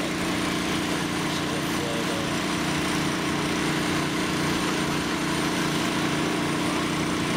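Small engine-driven water pump running steadily at a constant speed, a continuous even drone.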